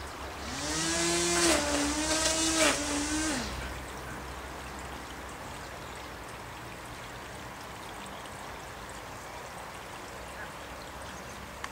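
Lawn trimmer run briefly for about three seconds: its motor whines up quickly to a steady high pitch with a hiss over it, then spins down. A steady low hiss follows.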